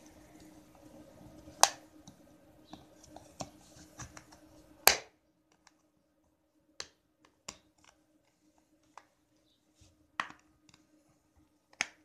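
Plastic snap-fit latches of a power bank case clicking as the case is pried open with a thin metal tool. Two loud, sharp snaps come in the first five seconds, followed by scattered lighter clicks.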